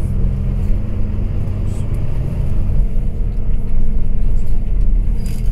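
A Dublin Bus double-decker's diesel engine running with a steady low rumble, building slightly about four seconds in.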